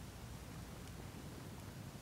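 Small wood campfire burning, with a faint crackle or two over a low, steady rumble.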